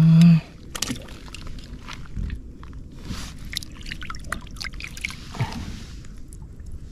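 Hands splashing and sloshing in shallow pond water, with scattered small drips and clicks that come thickest around the middle.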